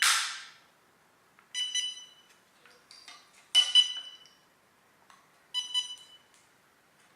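Wi-Fi smart door sensor beeping in pairing mode: three short, high, buzzy beeps about two seconds apart. A short hiss fades out at the very start.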